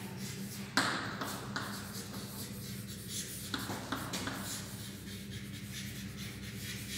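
Chalk writing on a chalkboard: faint scratching strokes and light taps as words are written out, with a sharper tap about a second in. A low steady hum runs underneath.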